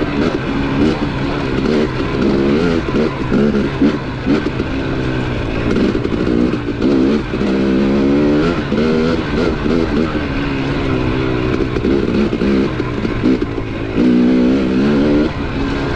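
KTM 250 dirt bike engine riding along singletrack, the revs rising and falling every second or so as the throttle is worked.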